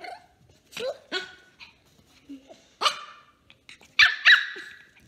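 Three-month-old Pomeranian puppy barking in play: a string of short, high-pitched barks, the loudest two close together about four seconds in.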